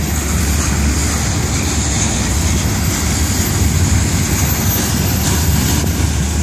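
A heavily loaded freight train of open hopper cars rolling past close by: a steady, loud rumble of steel wheels on the rails, with a steady high hiss over it.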